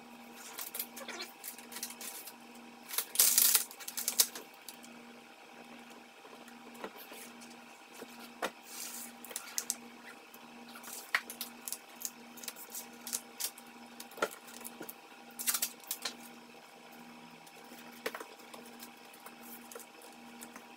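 Masking tape being handled on a plastic bumper cover: scattered crackles and rips as strips are pulled and pressed down, with the loudest tearing about three to four seconds in. Underneath runs a faint, evenly pulsing hum.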